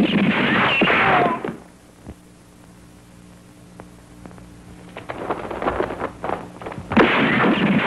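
Two loud gunshot-like blasts, each with a long rough tail: one at the start and another about seven seconds in. Between them it is quieter, with a low hum and a few sharp knocks and taps before the second blast.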